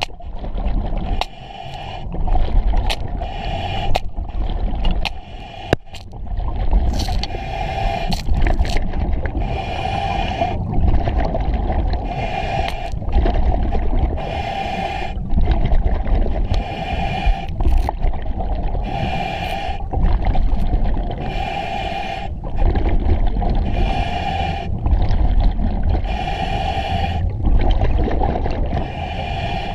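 Diver breathing through a Kirby Morgan EXO-26 full-face mask on scuba, heard inside the mask. Each inhale through the regulator is a hiss with a steady whistle-like tone, about every two seconds, over a constant low bubbling rumble from the exhaust. In the first few seconds there are also sharp clicks about once a second as the diver works among the chain and mussels on the bottom.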